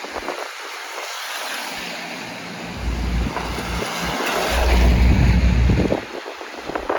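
Steady road and wind noise from a moving vehicle, with gusts of wind buffeting the microphone, loudest from about the middle to near the end.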